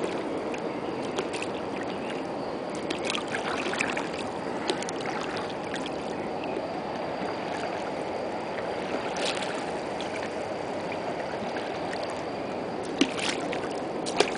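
A boat paddle dipping and pulling through river water, with brief splashes every few seconds, over a steady rush of flowing water.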